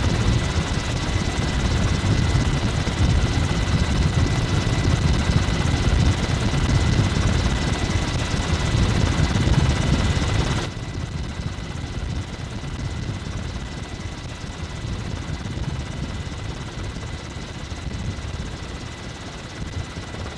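Steady helicopter rotor and engine noise with a faint high whine over it, as heard from an aircraft filming from the air. It drops noticeably quieter about halfway through.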